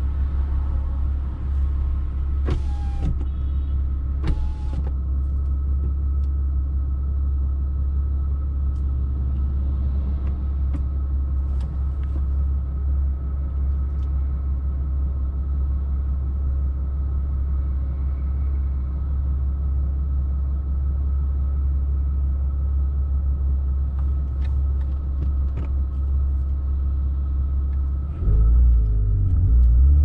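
Porsche flat-six engine idling steadily, heard from inside the cabin. Near the end the revs climb as the car pulls away.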